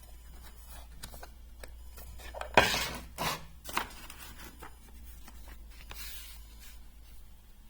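Small metal machinist's tools being handled and clinking: scattered clicks and knocks, the loudest a sharp knock with a short ring about two and a half seconds in, with a few lighter taps after it.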